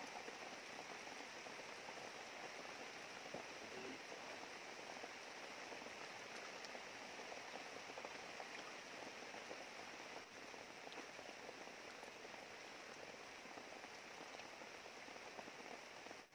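Shallow river water flowing over rocks: a steady, even rushing hiss.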